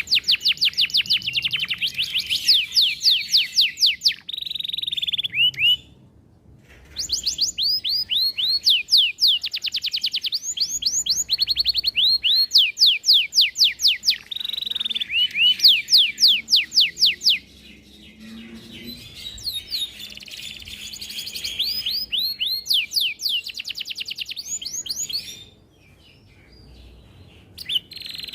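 Domestic canary singing long phrases of rapid repeated trills and rolls, with brief pauses between phrases.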